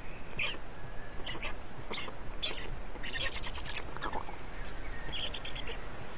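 Short high bird chirps repeating about twice a second, with a fast rattle of clicks about three seconds in and a quick run of about six notes near the end, over a steady low rumble.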